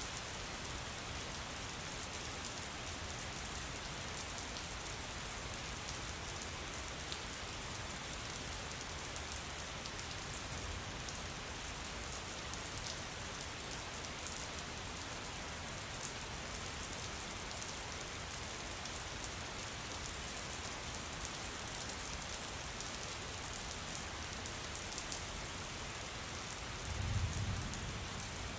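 Steady rain falling, with fine drops ticking on a surface throughout. About a second-long low rumble comes near the end.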